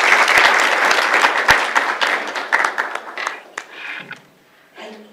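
Audience applause: many people clapping, which dies away about three to four seconds in.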